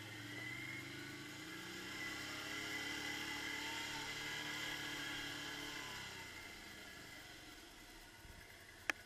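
Quad bike (ATV) engine running under way. Its note climbs a little over the first couple of seconds, holds, then eases off about six seconds in. A single sharp click near the end.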